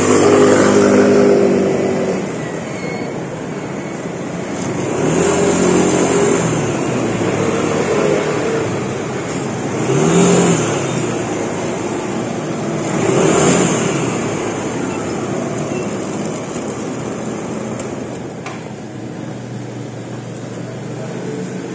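Street traffic: motor vehicles passing one after another, their engines rising and fading about four times over a steady background of road noise.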